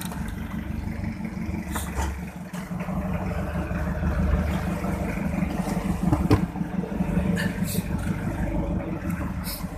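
A small fishing boat's engine running steadily, with a couple of brief knocks, one about two seconds in and one past the middle.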